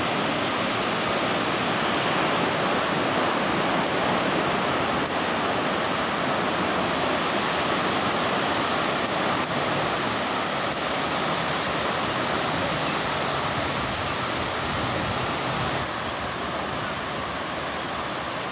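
Steady rushing noise of sea surf and wind at the shore, with no distinct wave breaks; it eases slightly near the end.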